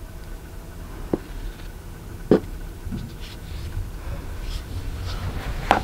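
Light scraping with three sharp knocks, the loudest about two seconds in and another near the end, over a low steady hum: utensil-and-bowl sounds while cake-batter ingredients are added and mixed.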